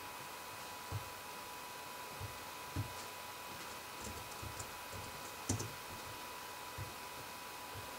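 Sparse, faint keystrokes and clicks from a computer keyboard, with a few soft knocks, over a steady faint tone and hiss.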